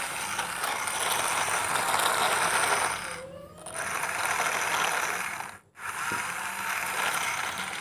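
Electric motor and plastic gears of a wired remote-control toy excavator, running with a dense grinding, ratcheting whir. The whir breaks off briefly twice, about halfway through and again near the end.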